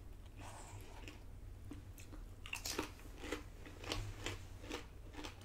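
Close-up chewing of very crispy bacon. Crisp crunches come about twice a second through the second half.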